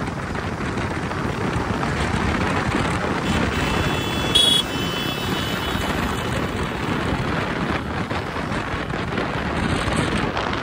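Wind rushing over the microphone and road noise while riding a motorcycle through traffic, with a short high-pitched beep about four seconds in.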